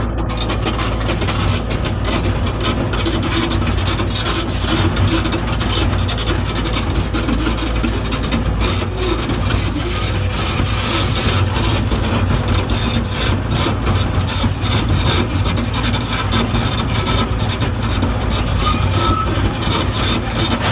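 Sumitomo SH120 excavator working, its diesel engine running steadily under a continuous rasping, scraping noise that starts right at the beginning.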